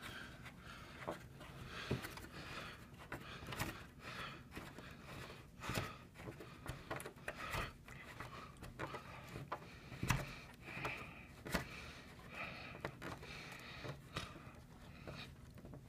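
Irregular small plastic clicks and scrapes from hands threading a 1/2-inch plastic cord grip into a knockout hole on a plastic junction box, with a sharper click about ten seconds in.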